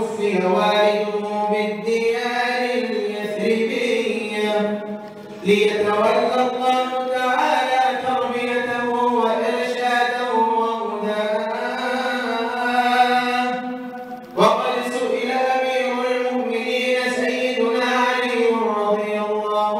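A man's solo voice chanting Arabic devotional verse in the Sufi madih style, singing long held, ornamented notes. He breaks off briefly for breath about 5 seconds in and again about 14 seconds in.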